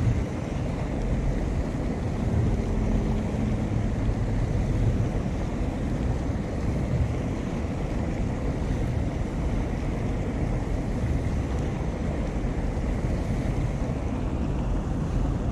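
Wind buffeting the microphone: a steady low rush of noise with no distinct events.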